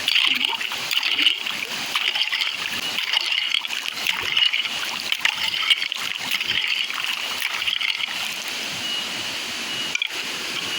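Shallow river water splashing and sloshing in irregular bursts as a metal detector is swept through it. A thin, steady high tone from the metal detector shows most clearly near the end.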